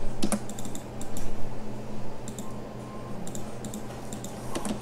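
Computer mouse and keyboard clicks, a few sharp clicks at a time in small irregular clusters, over a steady low electrical hum.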